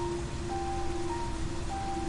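Slow, melancholy background music: a long held low note under single higher notes that change about every half second, over a steady hiss of rain.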